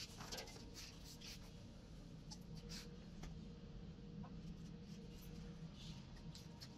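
Faint rustling and light scraping of cloth sandbag weights being shifted on a swing seat, thickest in the first three seconds and sparser after, over a steady low hum.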